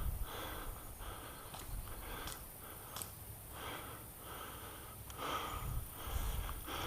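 A person breathing hard and audibly close to the microphone, in a steady run of soft hissing breaths about every two-thirds of a second.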